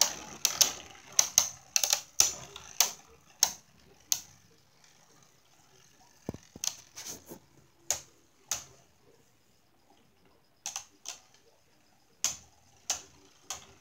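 Two spinning Beyblade tops, one an Archer Hercules with its metal fusion wheel, clashing in a plastic Beystadium: sharp irregular clacks, several a second at first, then fewer and further apart with short quiet gaps.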